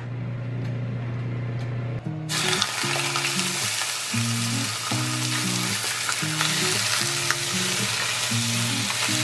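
Chicken pieces hitting hot oil in a stainless steel skillet, bursting into a sizzle about two seconds in and then frying with a steady hiss while being stirred.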